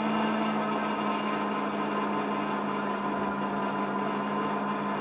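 Engwe Engine Pro 2.0 e-bike's 750-watt rear hub motor running steadily under heavy load, pulling the bike up a very steep hill on throttle alone at about 9 to 10 mph. It makes a steady hum with a higher whine above it.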